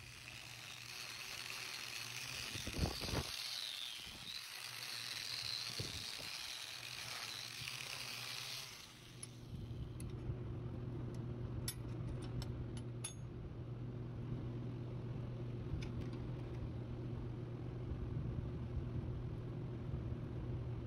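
Welding arc sizzling with a couple of small pops for about nine seconds while a steel nut is welded to the underside of a small channel-iron clamp, then stopping. After it a steady low hum carries on, with a few light metallic clicks as a bolt is turned into the welded nut.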